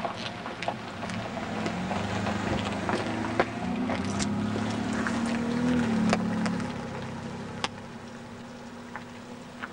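Car engine running, rising in pitch and level for a few seconds in the middle and then easing off, with scattered light clicks.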